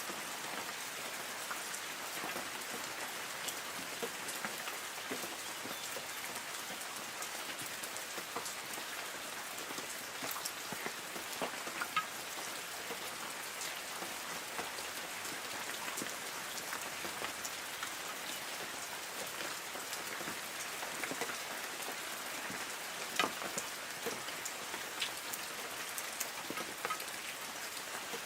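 Light rain falling on forest trees: a steady patter of drops hitting leaves, with scattered sharper individual drip ticks, two of them louder about twelve and twenty-three seconds in.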